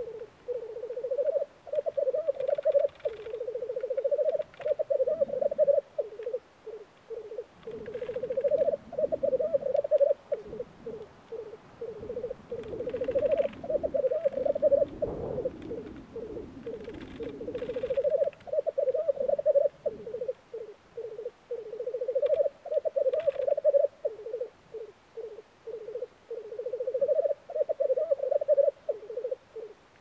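Male black grouse rookooing at a spring lek, their courtship display: a low bubbling, cooing warble in phrases a second or few long, one after another with short gaps.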